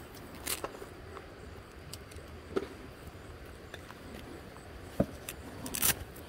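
A few sharp clicks and clinks of small hard objects being handled, the loudest and longest a little before the end, over a steady low background rush.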